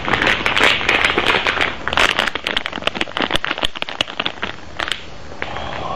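Plastic packaging crinkled close to the microphone: a dense run of sharp crackles that stops about five seconds in.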